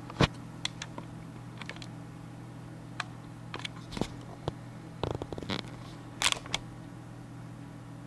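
Computer mouse clicking and its scroll wheel ticking as a document is scrolled down: a scattering of short, sharp clicks, some in quick little runs, over a steady low hum.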